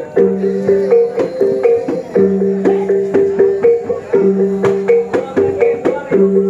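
Plucked-string dance music: a short melody repeating about every two seconds over held low notes, with sharp taps marking the beat.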